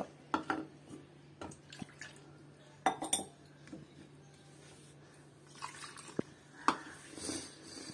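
A cup and bowl clinking and knocking as water is poured in over flour and curd for dosa batter. Irregular sharp clinks, the loudest about three seconds in and again near the end.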